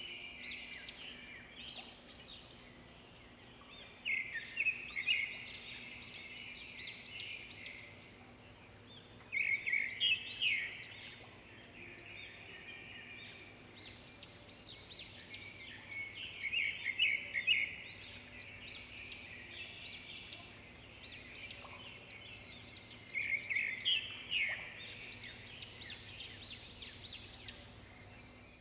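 Several small birds chirping and twittering in a continuous chorus of quick, high notes, with louder flurries of calls about four, ten and twenty-four seconds in.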